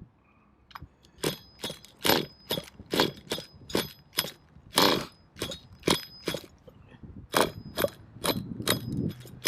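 Nitro RC buggy's pull starter yanked again and again, short rasping pulls about two a second, while the engine fails to keep running. A low steady hum comes in near the end.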